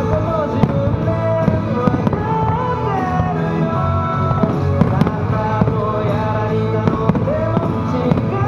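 Fireworks bursting in many sharp bangs over loud music with a clear melody accompanying the display.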